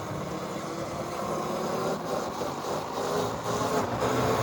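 A small motorbike engine running steadily under wind and tyre noise, getting a little louder toward the end.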